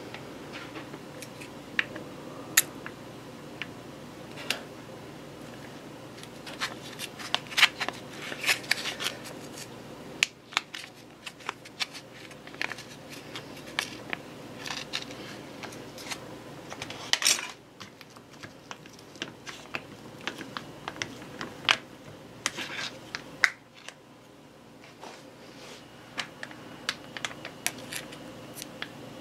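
Plastic squeeze bottle of sour cream being handled and squeezed over a plate: scattered small clicks and crackles of plastic, with a louder cluster about midway.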